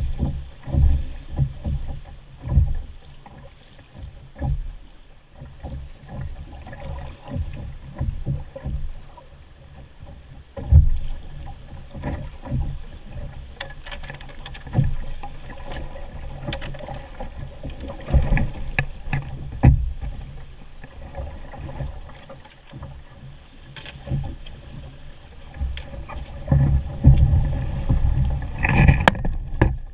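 Canoe being poled through fast, shallow floodwater: water rushing along the hull, with irregular knocks and thuds from the pole and the poler's footwork against the canoe.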